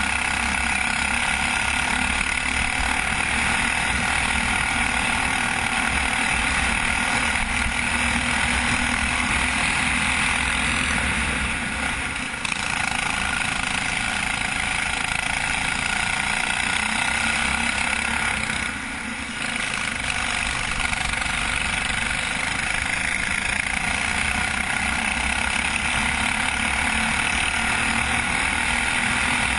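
Go-kart engine running at racing speed, recorded from a camera mounted on the kart, with a steady drone that dips briefly about twelve seconds in and again near nineteen seconds as the driver comes off the throttle.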